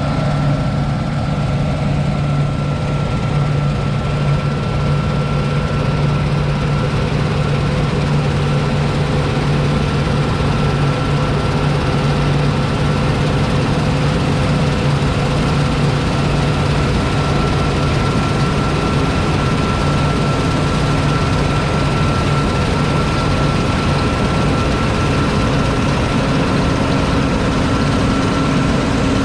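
John Deere 9780i CTS combine harvester's 8.1-litre six-cylinder diesel running steadily, with a constant high whine over the engine note.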